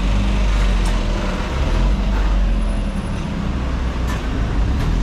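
Street traffic: a steady rumble of engines and road noise, with a few short clicks.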